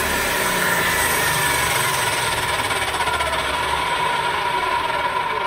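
A 12-amp Skilsaw circular saw running at full speed with no cut, a loud steady motor whine. It is powered from a 2000 W inverter and has started on a second trigger squeeze without tripping the inverter's overload.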